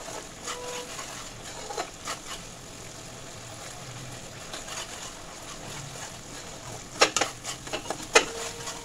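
Metal spatula stirring and scraping through a yogurt curry gravy in a steel kadai, with scattered clinks against the pan, the loudest near the end. The gravy has just come to a boil.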